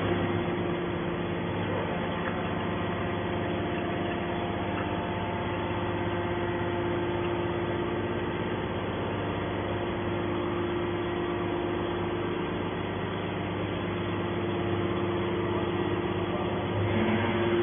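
Hydraulic scrap metal baler's power unit running steadily, a constant hum with a steady tone, while its ram pushes a compressed bale of light scrap metal out of the chamber. The noise grows a little louder near the end.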